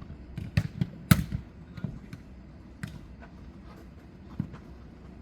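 Sharp, separate thuds of a jokgu ball being kicked and bouncing on the court during play, several in the first three seconds, the loudest about a second in, and one more near the end.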